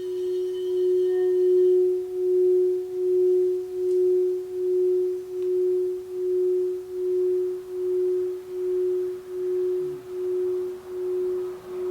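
Crystal alchemy singing bowl tuned to F sharp, the high heart chakra note (432 Hz tuning), singing one sustained tone that swells over the first couple of seconds and then pulses with a steady wobble a little more than once a second; its fainter high overtones die away early.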